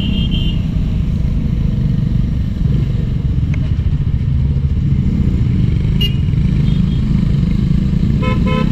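Motorcycle riding along a road, heard from the rider's own camera as a steady engine and wind rumble. Short vehicle horn beeps sound at the start and around six seconds in, and a double honk comes near the end.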